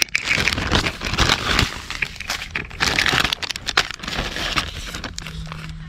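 Close rustling and crinkling handling noise with many sharp clicks and knocks, as things are handled right at the microphone.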